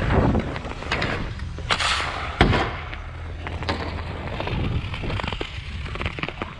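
Hockey skates scraping and carving on outdoor rink ice, with sharp knocks of a stick and puck; the loudest knock comes about two and a half seconds in.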